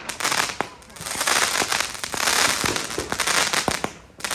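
Fireworks crackling with rapid sharp pops and sizzle, in two spells, the second starting about a second in.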